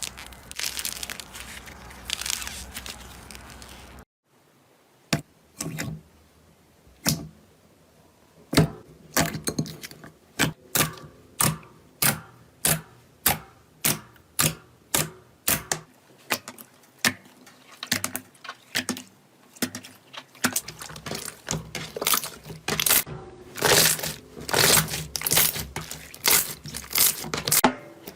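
Slime being handled close to the microphone: a steady crunching crackle at first, then after a cut, a run of sharp pops and clicks from the slime being pressed and squeezed. The pops start sparse, settle to about two a second, and grow louder and denser near the end.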